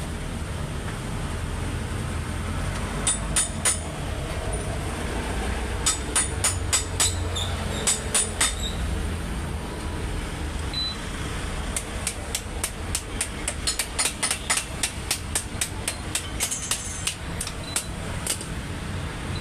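Hammer blows on metal, in short runs of three to five strikes, then a longer run of about two or three strikes a second. A steady low rumble lies beneath.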